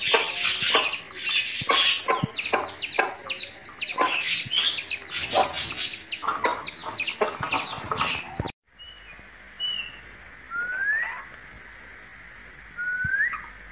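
Young chicks peeping nonstop, a rapid run of high, falling peeps several a second. After a sudden cut about two-thirds of the way through, a budgerigar gives two short rising whistles.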